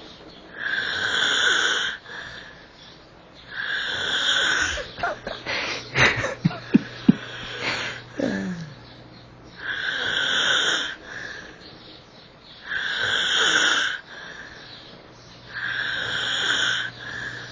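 A sleeping man snoring heavily, each rasping, wheezy breath coming about every three seconds. About halfway through, a run of sharp clicks and a short falling sound break the rhythm before the snoring resumes.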